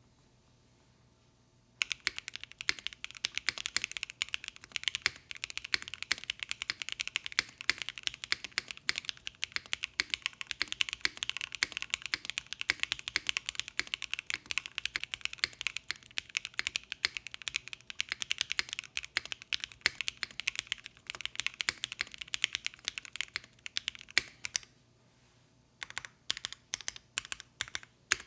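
Mechanical keyboard with Keygeek Uni linear switches, on a POM plate with no foam, being typed on fast in a loud, clacky stream. The typing starts about two seconds in, stops briefly near the end, then gives way to slower, evenly spaced single keystrokes.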